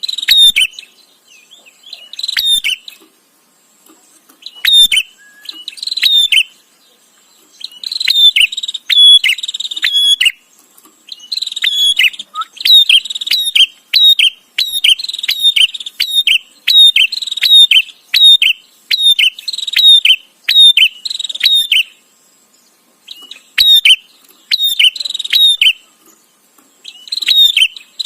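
A prinia (prenjak) chattering loudly: fast runs of sharp, high, repeated notes, each run lasting a second or two, broken by short pauses.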